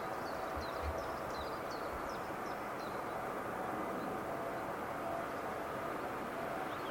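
Steady outdoor background noise with a faint steady tone underneath, and small birds chirping in short high calls over the first two or three seconds.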